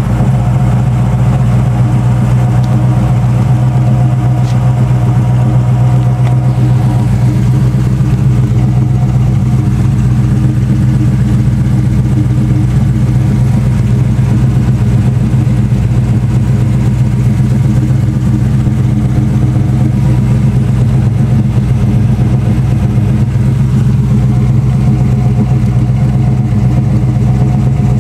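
1981 Chevrolet Camaro Z28's V8 exhaust at a steady idle, loud and even.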